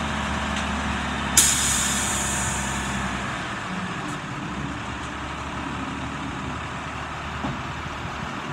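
1991 Ford L9000 dump truck's diesel engine idling, with a sudden loud burst of air hiss about a second and a half in that fades away over a second or two. The deep low hum of the engine drops away about three seconds in, leaving a lighter steady running sound.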